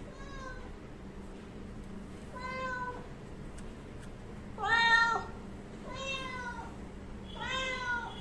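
Domestic cat meowing five times, each meow under a second long, the third, about five seconds in, the loudest.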